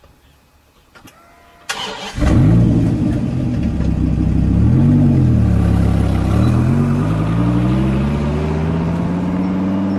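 Buick 215 aluminum V8 in a 1956 Volkswagen starting: it catches about two seconds in and runs loudly. It gives a short rev a few seconds later, then its pitch climbs steadily, as if revving up or pulling away.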